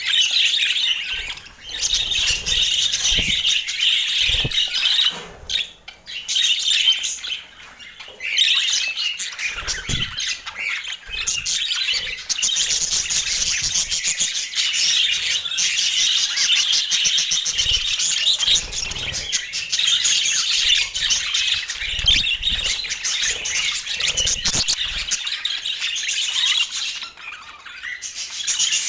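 Budgerigars chattering and warbling, a dense run of rapid chirps and squawks with a few short breaks.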